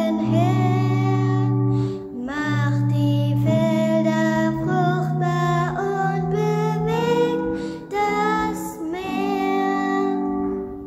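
A girl singing a German church song solo over held instrumental chords; her voice stops near the end.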